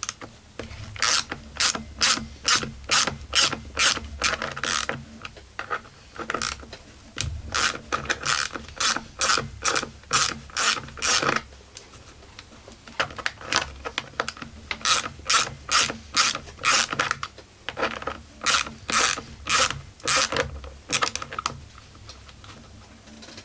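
Hand ratchet clicking in four separate runs of a few clicks a second, with short pauses between them, as it backs out the screws holding a Husqvarna 44 chainsaw's cylinder.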